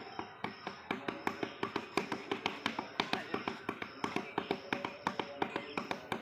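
Rapid fist strikes on a hand-held rubber tyre, a steady run of sharp slaps at about five a second.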